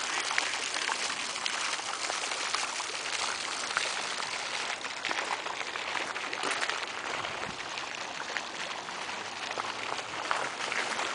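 Rain falling steadily: a dense, even patter of many small drops.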